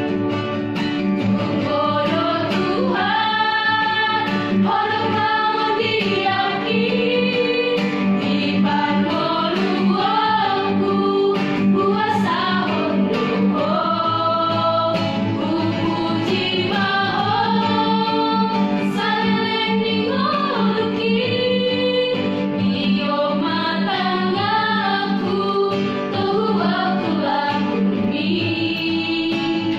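A small group of young women singing a spiritual song together in harmony, accompanied by an acoustic guitar.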